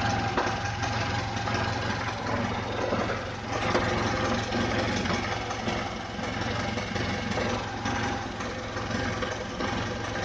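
VAZ 21011's four-cylinder petrol engine idling steadily with a repeated knock of unclear origin. Pressing and releasing the clutch does not change it, and the owners suspect it comes from somewhere in the oil pan rather than the transmission.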